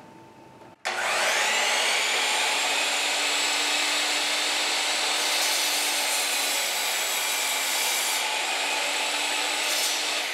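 Bosch CM10GD 10-inch miter saw's motor starting about a second in, its whine rising as the blade spins up, then running steadily at full speed. Midway the blade cuts down through a wood board for about three seconds, adding a harsher, higher noise.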